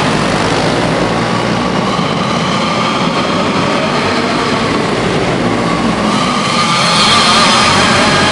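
Several racing go-kart engines running at high revs as the karts lap, a layered buzzing whine. About seven seconds in it rises in pitch and grows louder as karts come close.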